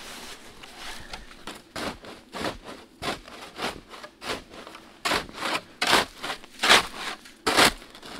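Snow shovel scraping and scooping snow in a quick run of strokes, about two a second, louder in the second half.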